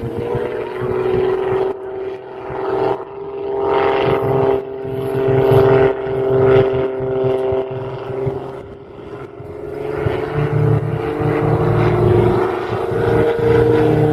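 Aerobatic propeller plane's piston engine running overhead, a steady propeller tone that drifts slightly in pitch; the sound fades about two-thirds through, then swells again.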